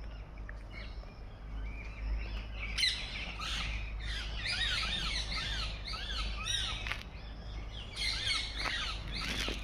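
Several small birds chirping and calling together in quick, overlapping chirps, many of them short dipping-and-rising notes, busiest in the middle and again near the end, over a low steady rumble.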